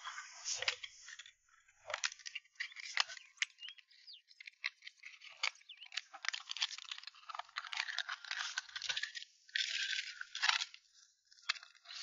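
Thin, brittle pen shells cracking and crunching as they are broken apart by hand and pried with a knife to get the meat out. There are many irregular sharp clicks and crackles with scraping in between.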